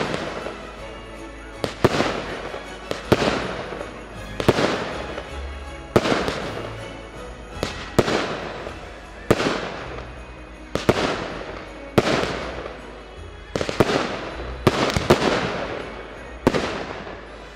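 Fireworks display: aerial shells bursting one after another, about one every second and a half. Each burst is a sharp bang followed by a fading hiss and crackle from the falling sparks.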